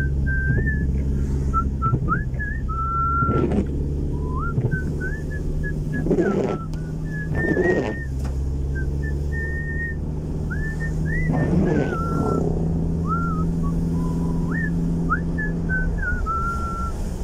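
A person whistling a tune of short, gliding notes and longer held ones. Under it runs the steady hum of the car's engine and road noise inside the cabin, with a few brief thumps.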